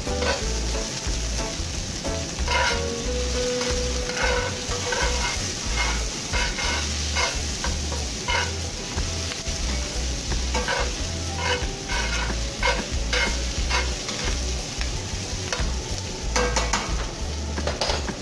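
Chopped onions and shallots sizzling in oil in a cast-iron skillet while being stirred, the utensil scraping and knocking against the pan again and again over the steady hiss of frying.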